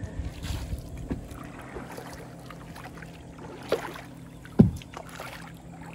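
Wooden canoe paddles dipping and splashing in lake water, with a few short knocks and one sharp knock about two-thirds of the way through.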